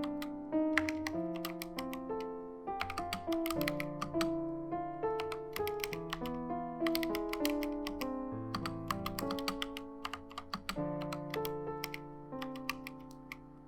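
Typing on a Helen 80 custom mechanical keyboard with HolyTom V2 switches and XDA-profile keycaps: quick runs of sharp keystroke clacks, over background piano music.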